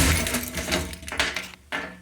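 A fire alarm system being reset: a steady alarm tone cuts off sharply at the start, followed by a run of clicks about two a second that fade away.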